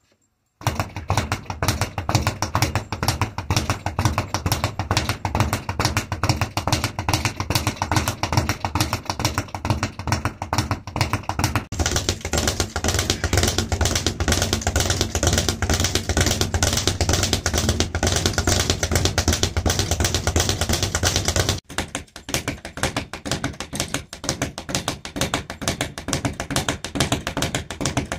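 Speed bag worked with weighted gloves in a fast, unbroken rhythm: a rapid rattle of sharp knocks as the bag bounces off the rebound platform and is punched again. It starts about half a second in, and its tone shifts abruptly twice.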